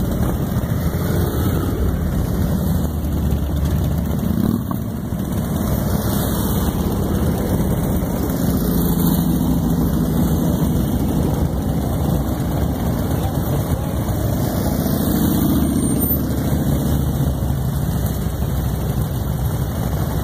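A group of motorcycle engines idling together, a steady running sound without pauses.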